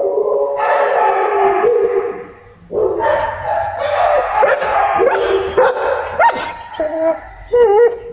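Shelter dogs in kennels barking and howling over one another, long wavering howls mixed with shorter barks, with a brief lull about two and a half seconds in.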